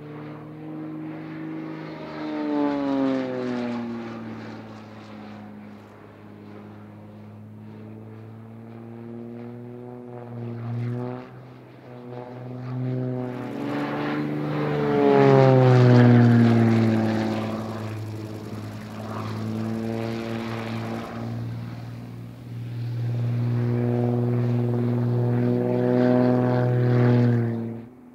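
Propeller engines of large radio-controlled aerobatic model planes droning overhead, with the pitch falling twice as planes pass close by. The sound cuts off suddenly near the end.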